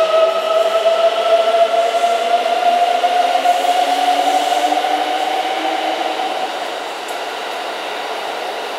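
Kintetsu Ise-Shima Liner express train pulling out of the station. Its electric traction motors give a steady whine that rises slowly in pitch as it accelerates, then fades away after about six seconds.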